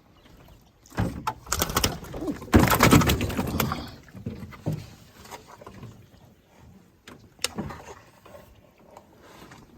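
Water splashing and knocking around a small rowboat, loudest from about one to four seconds in, then scattered knocks.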